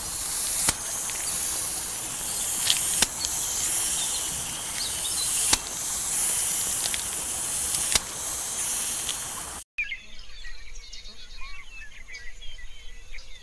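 A steady high-pitched outdoor hiss with a sharp click about every two and a half seconds. After a sudden cut about ten seconds in, many small birds chirp.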